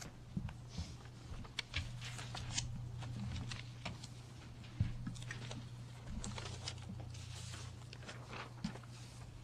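Meeting-room tone picked up by the microphone system: a steady low hum with scattered soft rustles and clicks, like papers being handled.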